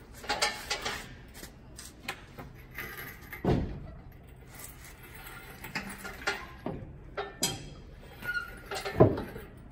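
Scattered metal clinks and knocks from a bus's manual transmission hanging in a chain sling as it is swung toward the bell housing, with a heavier clunk about three and a half seconds in and another near the end.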